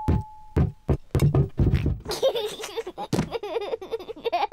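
A quick run of cartoon thuds, a large vase rocking against the floor, followed by a young piglet laughing.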